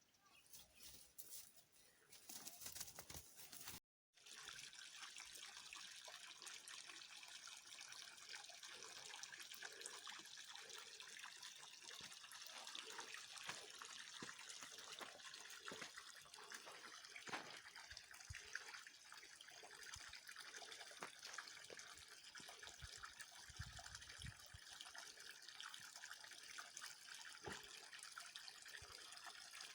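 Faint, steady flowing water, a trickling stream with small splashes, broken by a short cut about four seconds in.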